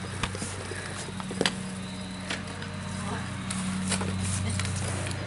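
Go-kart's small engine running steadily with a low pulsing hum, a little louder in the second half, with a few sharp knocks over it.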